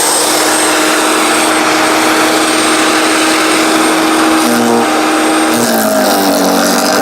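A 15 amp electric wood chipper shredder running loud and steady, its motor hum and cutter noise even, with the pitch dipping briefly about four and a half seconds in and settling lower near the end.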